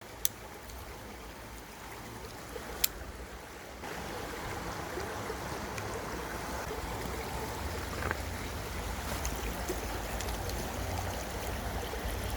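Mountain stream water running steadily, getting louder about four seconds in, with two sharp clicks in the first three seconds.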